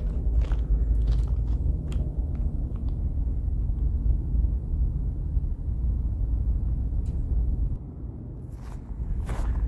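Wind buffeting the microphone, a steady low rumble, with scattered light clicks. There is a brief lull near the end, then a few louder crunching sounds.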